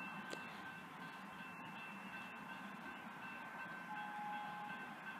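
Faint, steady ambient noise on a suburban railway platform, with thin, high, steady whines, while a Siemens electric train approaches from far off.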